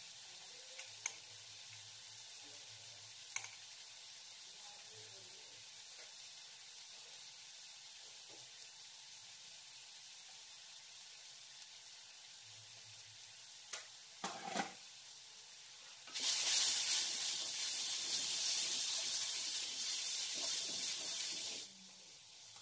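Spices and paste frying in a kadhai: a faint steady sizzle with a few light clicks of a spoon, then, about two-thirds of the way in, a loud burst of sizzling and stirring lasting about five seconds that cuts off suddenly.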